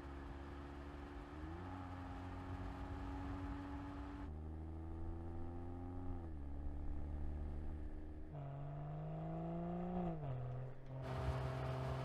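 BMW M440i's 3.0-litre turbocharged straight-six engine and exhaust running at fairly low revs over a few short takes. Twice the pitch climbs slowly and then drops quickly, about halfway through and again near the end.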